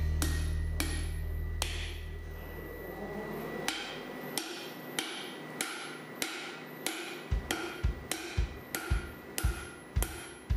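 Hand hammer striking red-hot steel on an anvil: a couple of separate blows, then steady blows about two a second from about four seconds in, each with a short metallic ring. Background music plays underneath.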